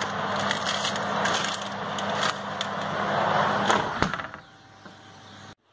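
Oven running with its door open, a steady hum, with light clicks as a cake tin is slid onto the wire rack. About four seconds in the oven door shuts with a single knock, and the hum carries on much fainter behind it.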